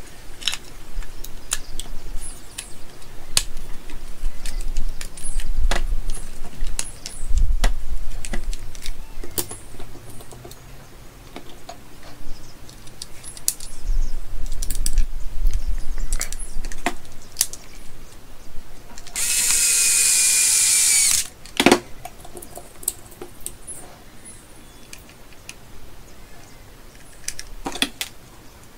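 The plastic case of a rebuilt Milwaukee M18 battery pack clicks and knocks as it is handled and closed up. Partway through, a cordless screwdriver whines for about two seconds as it drives a case screw.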